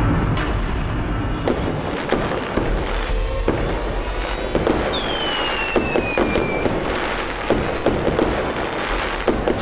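Fireworks going off in rapid bangs and crackles, with a whistle falling in pitch for about a second and a half, about five seconds in.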